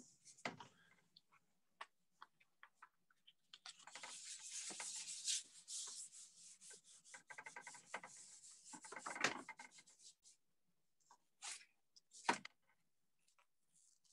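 A hand rubbing a sheet pressed flat against a wet-painted canvas: a dry, scratchy rubbing with light taps, heaviest through the middle. Near the end come two short, sharper scrapes.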